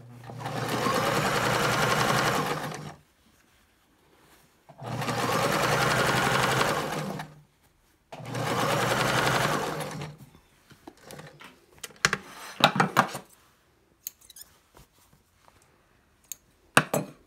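Kenmore sewing machine top-stitching a curved seam, running in three steady bursts of two to three seconds with short stops between as the work is flattened out. A few scattered clicks and knocks follow.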